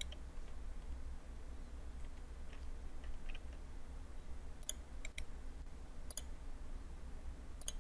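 A few faint, scattered computer mouse clicks, most of them in the second half, over a low steady hum.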